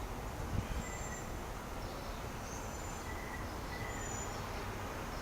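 Steady background noise with a few faint, short, high-pitched chirps scattered through it.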